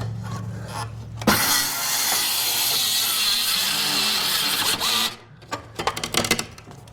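Circular saw cutting through a wooden ceiling furring strip for about four seconds, starting suddenly about a second in. Near the end comes a run of sharp cracks and knocks.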